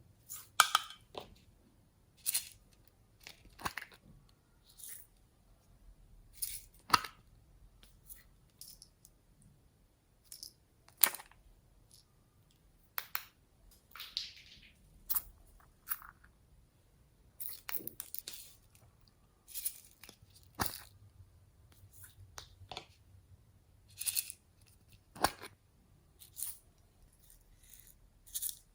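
Glossy slime with floam beads worked into it, squeezed and stretched by hand, giving irregular sharp pops and crackles with short squishy hisses between them.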